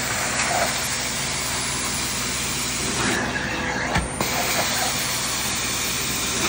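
Carpet-cleaning hot-water extraction with a stair tool: the extractor's vacuum draws steadily through the wand. About three seconds in, the spray hisses for about a second and ends with a short knock.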